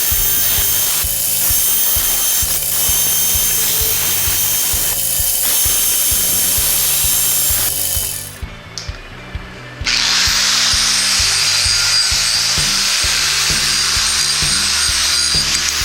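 Background music with a changing bass line, over the whirring hiss of a power tool working metal. The tool noise drops out briefly about halfway through, then returns.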